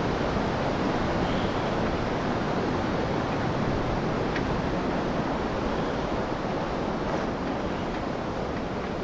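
Steady rush of a fast glacial river, the Hooker River, flowing beneath a suspension footbridge, growing slightly fainter near the end.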